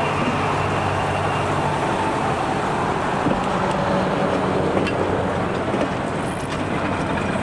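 Passenger coaches rolling past close by, wheels running on the rails with a few light clicks, over the steady running of a French-built 7100-class diesel locomotive's engine.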